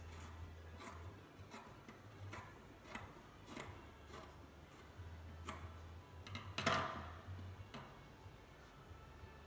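Dressmaking scissors snipping through cotton wax-print fabric, a crisp snip about every two-thirds of a second, then a louder clatter about seven seconds in.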